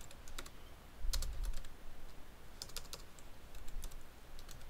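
Typing on a computer keyboard: irregular, separate keystrokes with short pauses between them as a command is typed out.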